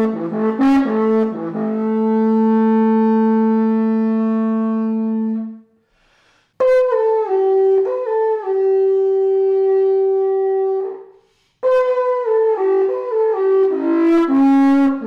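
Slovak fujara trombita, a wooden conical horn more than two metres long with no fingerholes, played in its overtones. Three signal-style phrases, each a run of quick stepping notes ending in a long held note: the first settles on a low note, the second steps down from a high note to a middle one, and the third descends quickly near the end, with a short pause between phrases.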